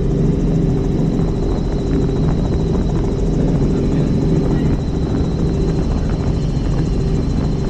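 Helicopter in flight, running steadily: a constant deep drone with a thin, high whine held over it.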